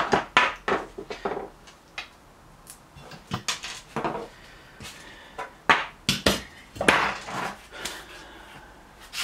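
Metal hand tools clinking and clattering in an irregular string of sharp knocks as they are rummaged through and picked up, while the right-sized 17 tool is sought.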